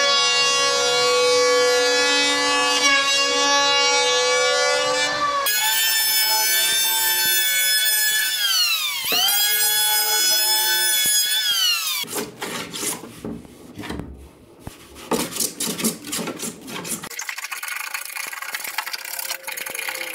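Electric hand planer running against the wooden surfboard's rail. Its motor gives a steady whine whose pitch falls and climbs again around the middle, then the blades make choppy, rough cutting noise on the wood.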